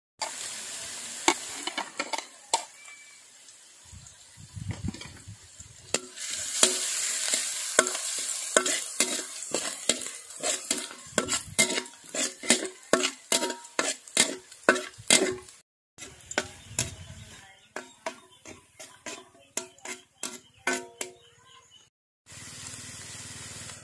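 Minced garlic sizzling in hot oil in a metal wok, with a metal spatula repeatedly scraping and tapping against the pan as the garlic is stirred and fried golden. The sound drops out briefly twice.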